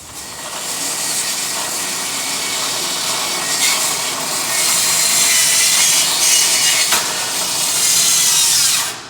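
An old table saw ripping wood for new roof trusses: a steady, loud cutting noise that gets louder about halfway through and stops shortly before the end.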